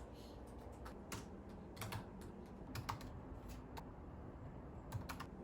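Faint, irregular clicking of keys being typed on a computer keyboard, over a low, steady room hum.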